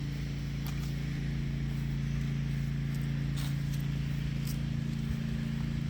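Steady low motor hum with a few faint light clicks.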